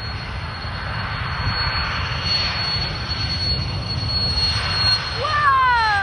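Private jet's engines running with a steady rumble and a thin high whine, slowly growing louder. Near the end a short pitched sound falls sharply in pitch and stands out over the jet.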